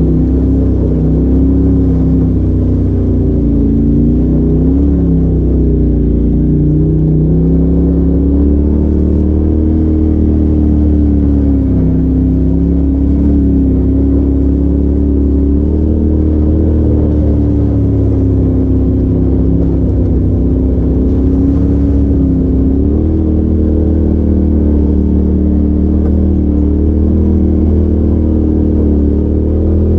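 Polaris RZR side-by-side's engine running as it drives slowly along a rough trail. Its pitch rises and falls gently with the throttle over a steady low rumble, heard from inside the open cab.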